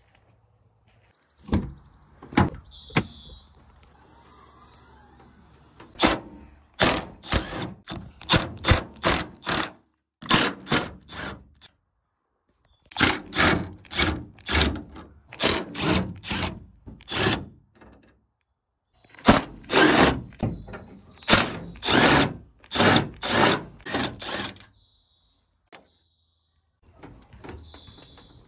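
Cordless driver with a socket on an extension, run in many short bursts of under a second, in three groups with brief gaps between them, undoing the grille fasteners. A few single knocks come before the first group.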